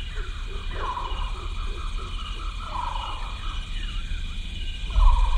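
A person's voice giving a wavering, animal-like yell, with a low rumble that swells near the end.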